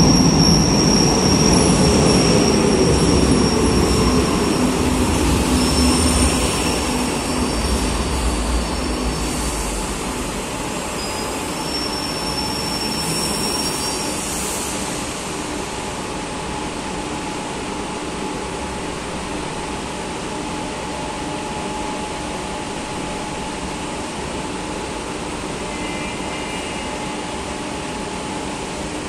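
Madrid Metro series 2000A train running into the station and braking to a stop, with a high thin squeal over the rumble for the first half, the sound easing as it slows. Once it has stopped, the standing train gives a steady hum.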